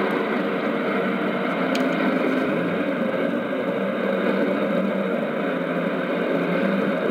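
Steady hiss and static from a JRC NRD-525G shortwave receiver's speaker, tuned in AM to 5940 kHz, with no clear programme coming through the noise.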